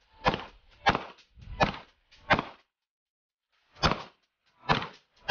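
9mm pistol shots from two handguns, fired singly at a steady pace of about one every three-quarters of a second. Six shots, with a pause of about a second and a half after the fourth.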